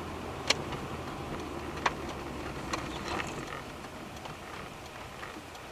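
Car cabin noise while driving: a steady low engine and road hum, with two sharp clicks about half a second and two seconds in and a few fainter ticks soon after.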